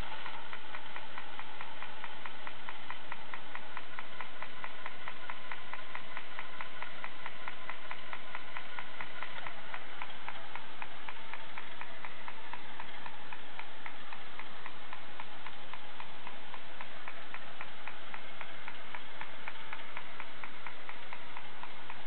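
Tin toy patrol helicopter running, its rotor turning: a steady mechanical whir with rapid, even ticking from the toy's mechanism.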